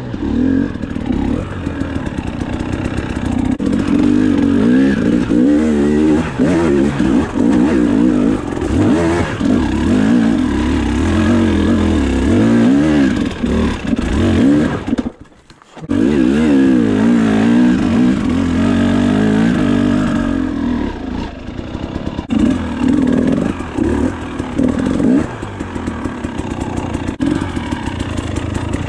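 Dirt bike engine running under way on a rough trail, its pitch rising and falling as the throttle opens and closes. The sound cuts out for about a second halfway through.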